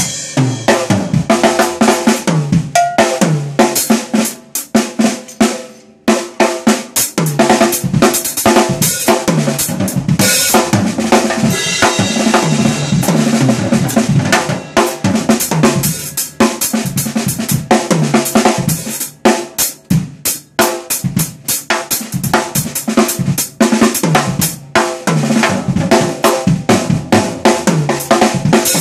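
Acoustic drum kit played in a fast, busy solo: snare, toms, bass drum and cymbal crashes in dense, rapid strokes, with a couple of brief pauses.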